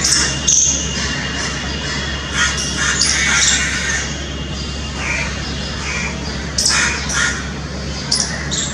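Squirrel calling with short, sharp, high-pitched chirps repeated irregularly, over a steady low hum.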